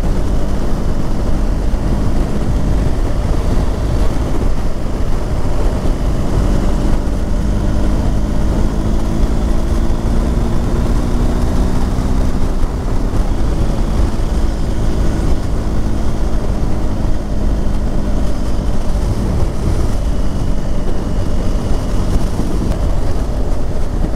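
Motorcycle riding at road speed: heavy wind rush on the microphone over the engine's drone. Through the middle the engine note stands out more clearly and slowly rises in pitch.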